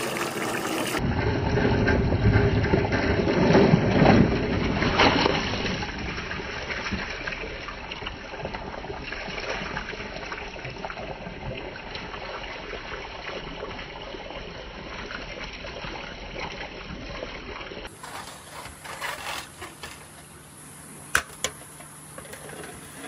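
Hundreds of glass marbles pouring down a marble run: a dense clattering rush, loudest in the first few seconds, then thinning to a steady rolling rattle. Near the end it drops to a quieter patter with a few single sharp clicks.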